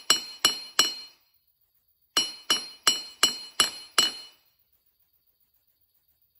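Ball-peen hammer striking a flattened copper wire strip on a steel block, each blow with a short metallic ring. The blows come about three a second: three, a pause of about a second, then six more, stopping a little after four seconds in.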